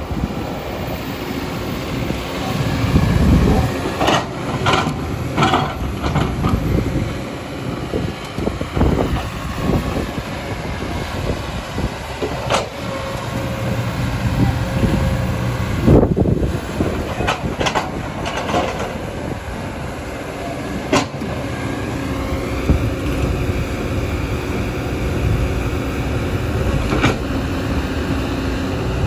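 Kobelco hydraulic excavator working: a steady diesel engine drone with hydraulic whine, which rises in pitch once near the end, broken by sharp knocks several times.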